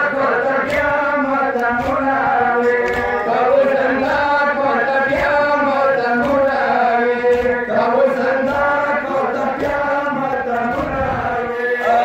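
Men chanting a Pashto nohay, a Shia mourning lament, in long held, slowly rising and falling notes, with a beat of thumps underneath.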